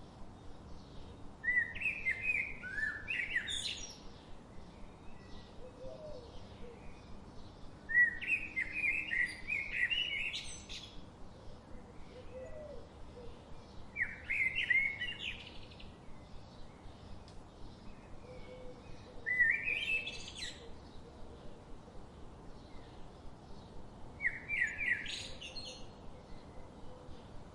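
A bird singing the same short phrase of quick notes five times, about every five to six seconds, each phrase ending in a rising flourish.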